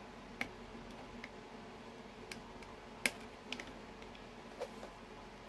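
A handful of light, sharp clicks and taps from handling a plastic model-aircraft fuel tank and its small fittings, about six in all, the sharpest about three seconds in.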